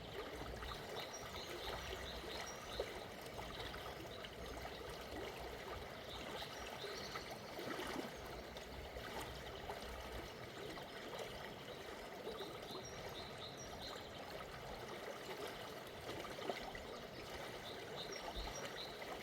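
Small forest river flowing with a gentle current, a steady even rush of water. Small birds twitter in short clusters of chirps now and then.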